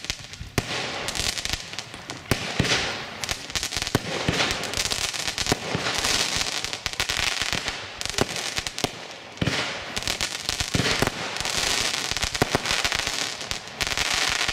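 Compound firework cake firing: a rapid, uneven run of shots and bangs over a steady hiss from the burning effects.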